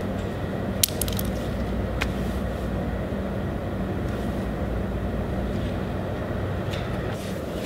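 Steady low electrical hum with room noise. A few small sharp clicks come about a second in and again about two seconds in.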